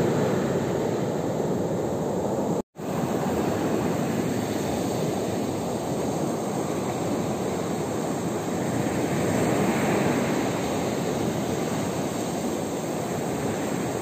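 Sea surf breaking and washing up a pebble beach: a steady rushing noise that swells and ebbs slowly, cutting out for an instant about three seconds in.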